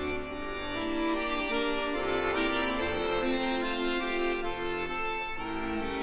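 Accordion music: a melody played over sustained chords.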